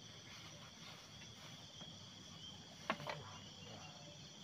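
Faint steady chirring of insects. About three seconds in there is a short, sharp double sound.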